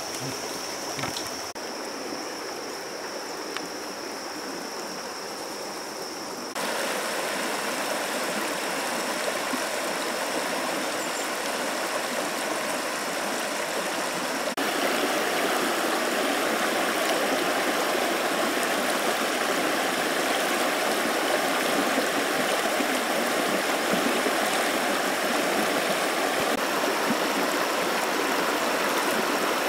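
Shallow rocky river flowing, a steady rushing of water over stones that gets louder in two steps, about 6 and 15 seconds in. A thin steady high-pitched whine runs underneath.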